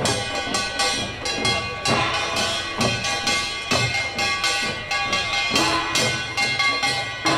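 A Korean pungmul percussion troupe playing: barrel drums and small hand drums struck in a brisk, steady rhythm, over a steady metallic ringing.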